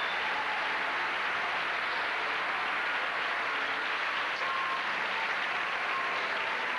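Steady applause.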